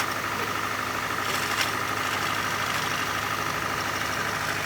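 1994 Ford Escort 1.6 engine idling steadily, with the noise the customer complains of as a rattling from the gearbox; two faint ticks about a second and a half in.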